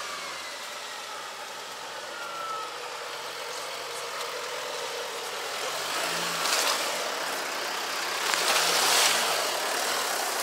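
Off-road 4x4's engine running while the vehicle crawls over a diagonal rut crossing, growing louder in the second half.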